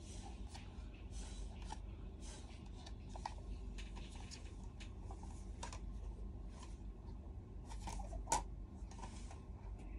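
Rustling and crinkling of clear plastic packaging being handled and unwrapped, with scattered light clicks and one sharp click about eight seconds in, over a steady low hum.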